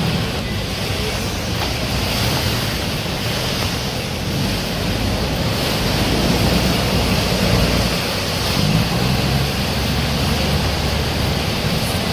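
Khlong Saen Saep canal express boats passing close by: a steady low diesel engine rumble over loud rushing, churning wake water.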